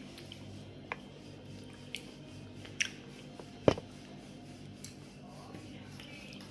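Crisp fuchka (pani puri) shells cracking as they are broken open and bitten, a handful of sharp cracks with the loudest about three and a half seconds in, over a steady low hum.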